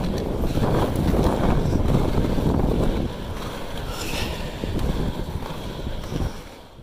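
Wind buffeting the microphone over the rumble of skateboard wheels rolling on asphalt. The noise eases about three seconds in.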